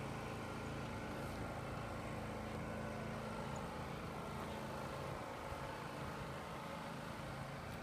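A steady low engine hum, an unchanging drone.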